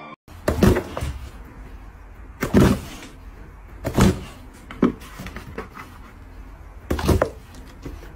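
Dog snapping and bumping its muzzle against a cardboard box lid, giving five dull knocks at uneven gaps.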